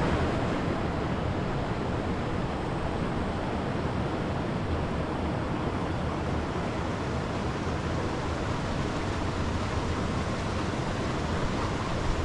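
Steady rushing of a shallow river flowing over rocks.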